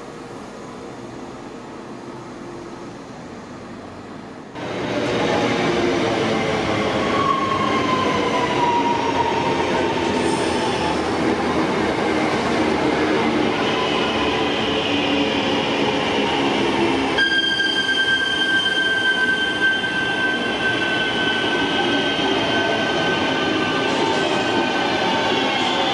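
Class 323 electric multiple unit running through the station close by, with its traction motor whine. It starts suddenly about four and a half seconds in, after quieter background noise. Several whining tones glide down in pitch as the train slows, and later a steady high whine falls slowly.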